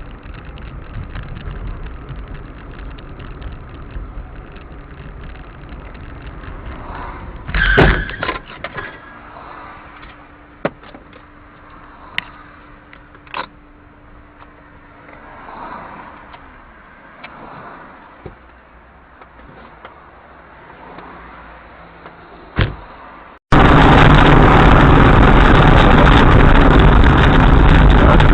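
Dash-cam audio of a car: steady low rumble, then one loud thump about eight seconds in, followed by scattered clicks and knocks. Near the end it cuts abruptly to loud, steady road and wind noise.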